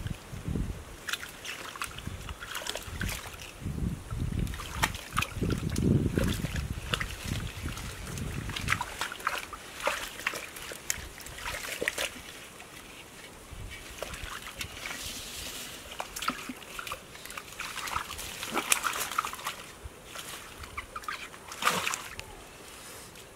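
Hands sloshing and splashing in shallow muddy water, groping through the mud for fish in irregular bursts. It is heavier and deeper for the first several seconds, then lighter and sparser.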